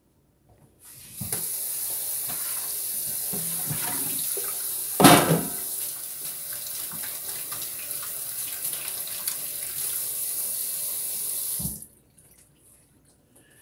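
Kitchen tap running into a sink: the water starts about a second in, runs steadily for about ten seconds and cuts off sharply near the end, with a brief louder noise about five seconds in.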